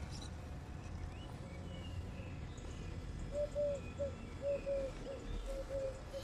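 Electric motor of a Traxxas TRX-4 Defender scale crawler whining in a run of short throttle blips, each rising and falling in pitch, as it inches between tree trunks. Birds chirp faintly in the first half.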